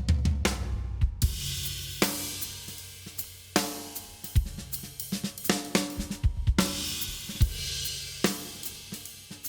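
Acoustic drum kit being played: bass drum and snare hits with crash cymbals struck several times and ringing out, and a low tom sounding in the first second.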